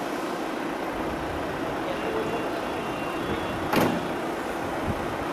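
Steady city street traffic noise from cars, with one sharp slam or knock about four seconds in, the loudest moment, and a fainter click a second later.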